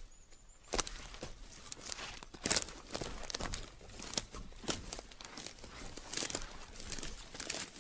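Footsteps crunching through dry leaves and leafy undergrowth, with plants rustling as they brush past; irregular crisp steps, the loudest about two and a half seconds in.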